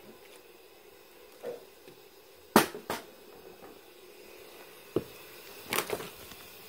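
A few sharp knocks in a quiet room: a loud one about two and a half seconds in, a second just after it, and a few lighter ones later.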